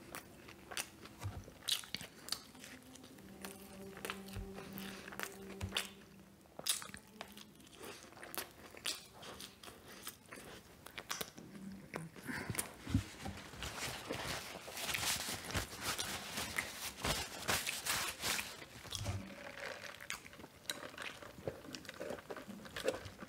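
Close-miked chewing and crunching of a breaded fried chicken sandwich, a steady run of wet, crackly clicks from the mouth that grows busier and louder about halfway through.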